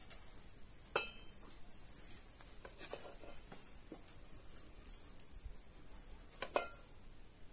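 A metal spoon clinking and tapping against a frying pan and cooking pot as fried butternut squash pieces are spooned out: two sharp ringing clinks, about a second in and again near the end, with softer taps between.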